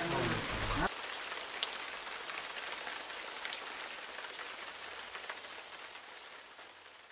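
Steady rain falling, an even hiss with faint scattered drips, slowly fading out toward the end.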